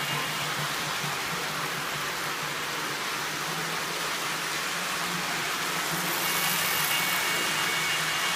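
O gauge model train running on its track: a steady rolling rumble of wheels on rail with motor hum, growing a little louder as the cars pass close. A faint steady high tone joins about six seconds in.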